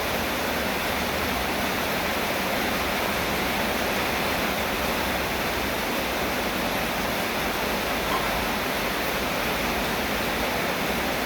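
Steady heavy rain falling, a dense even hiss with no separate drops standing out, and one faint tick about eight seconds in.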